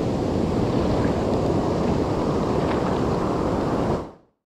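Ocean surf washing through the shallows, a steady rush with wind buffeting the microphone; it fades out about four seconds in.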